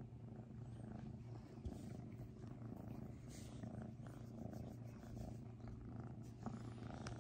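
Kitten purring steadily while it is stroked on a person's lap, the low purr swelling and easing with its breathing.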